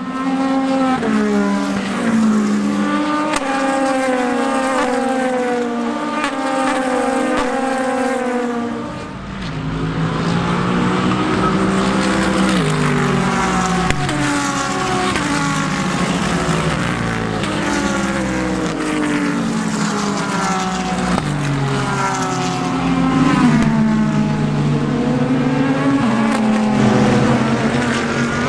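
Race cars' engines running at speed on the circuit, their pitch climbing and dropping in steps through gear changes. Several cars overlap, with a brief lull about nine seconds in.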